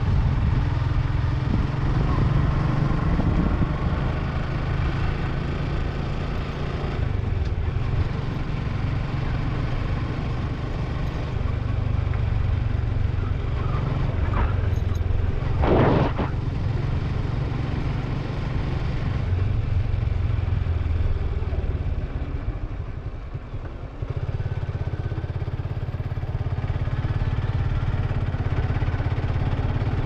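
Suzuki Gixxer 155's single-cylinder four-stroke engine and exhaust running steadily at low road speed, heard from the rider's seat with road and wind noise. About halfway through there is one brief, louder sharp sound. In the last third the sound drops for a couple of seconds, then picks up again.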